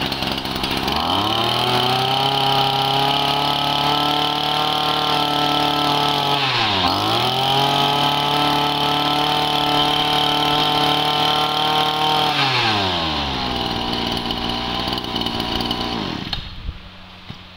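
Kawasaki TG20 20cc two-stroke brush cutter engine test-run: it climbs from idle to high revs about a second in, drops and picks up again once about seven seconds in, then falls back to idle around twelve seconds and cuts off near the end.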